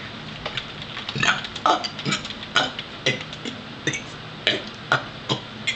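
A quick, uneven string of short, sharp clicks, about two to three a second, starting about a second in.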